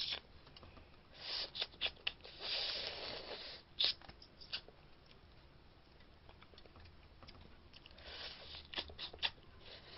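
Eating snow crab: soft sucking and chewing as meat is drawn from a piece of shell held to the mouth. It comes in short bursts with a few small clicks.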